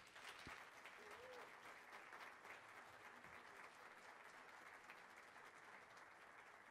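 Audience applauding, heard faintly, the clapping easing off a little toward the end.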